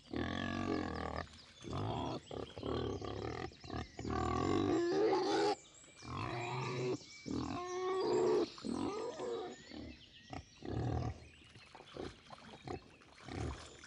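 Sardinian wild boars (Sus scrofa meridionalis) grunting in a string of short, irregular calls, with a longer, louder call around the middle.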